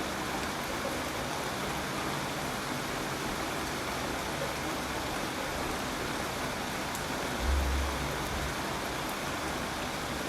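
Steady rain falling, an even hiss with no break, and a brief low rumble about seven and a half seconds in.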